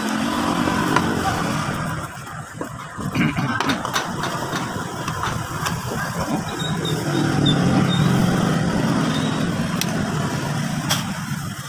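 A steady low engine rumble, like a motor vehicle running nearby, strongest about two-thirds of the way through. Over it come scattered light clicks and the scratch of a brush on small metal parts.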